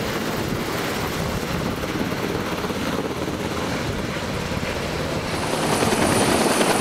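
Navy MH-60 Seahawk helicopter hovering with a slung cargo load, its rotor beating with a fast, steady chop. About five seconds in it grows louder and a thin, steady high whine joins it.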